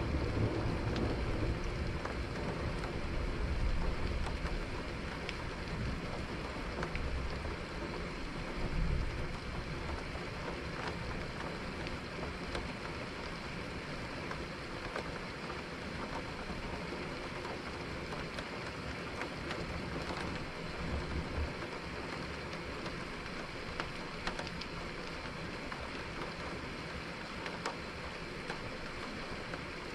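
Steady rain falling, with thunder rumbling low at the start and dying away over the first few seconds, and shorter rumbles about nine seconds in and again near twenty seconds.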